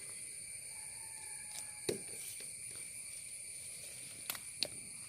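Steady high-pitched insect drone, with a few sharp clicks or knocks about two seconds in and again near the end.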